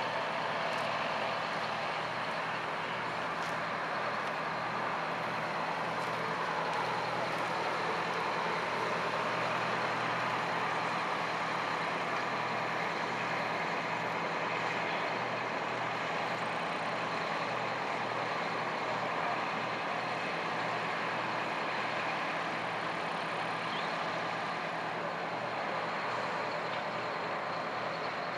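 Aircraft tow tractor's engine running steadily as it tows a jet along the apron.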